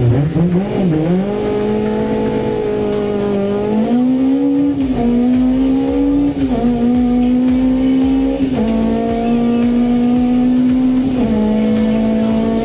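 SEAT Ibiza Kit Car's four-cylinder race engine heard from inside the cabin, revving hard as the car pulls away from a standstill, then pulling through the gears with the pitch dropping at each of about three upshifts.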